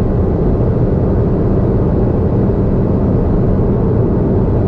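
Steady in-cabin road and engine noise from a Honda S660 cruising at about 90 km/h, with the drone of its mid-mounted 658 cc turbocharged three-cylinder behind the seats. The noise is even and low-pitched, with no sudden events.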